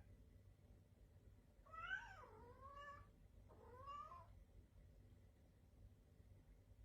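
A cat meowing faintly, twice: a longer, bending meow about two seconds in and a shorter one about four seconds in.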